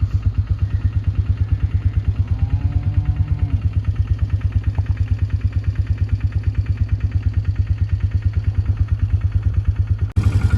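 An engine idling steadily with a fast, even low beat. A calf moos once, about two seconds in.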